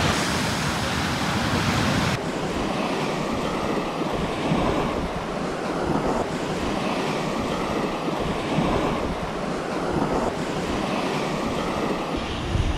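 Waves washing on a Lake Michigan shore, with wind blowing on the microphone. The surf swells and falls every couple of seconds, and the sound changes abruptly about two seconds in.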